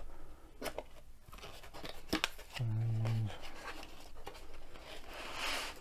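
Cardboard box end being opened by hand: a few sharp clicks and taps from the card, then paper and card packaging rustling and sliding near the end. A man's short low hum a little before the middle.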